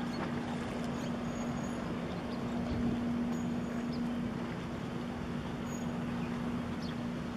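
Steady low drone of a ship's engine, holding one even pitch, over a wash of wind and water noise.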